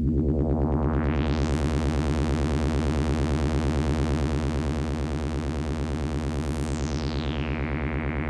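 Analog synthesizer drone from a VCO through a Behringer 121 dual VCF, a low steady note with a fast pulsing. The filter cutoff sweeps open over the first couple of seconds, brightening the tone, then sweeps back down, darkening it, about seven seconds in.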